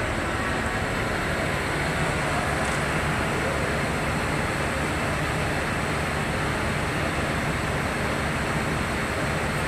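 Steady drone of a fire engine's engine running while parked, with a constant low hum under a wide even rush of noise.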